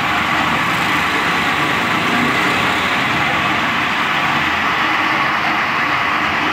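Steady rushing hiss of LPG being decanted through a hose from a large cylinder into a small domestic gas cylinder.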